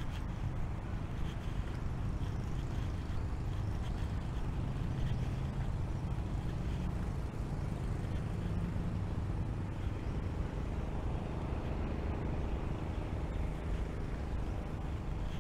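Steady rumble of road traffic, a continuous low hum without distinct passing vehicles.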